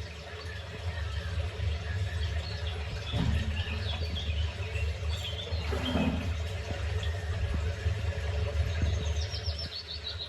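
Small birds chirping in short, scattered calls, with a quick run of chirps near the end, over a steady low rumble.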